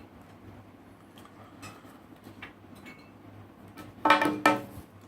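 Light clicks and taps from handling the iPhone 7 box and its packaging. About four seconds in come two short, louder sounds, each with a pitched, squeaky edge.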